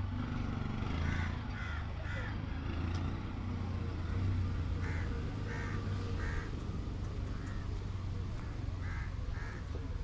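A bird giving short harsh calls in groups: three about a second in, four around five seconds in and two near the end, over a steady low rumble.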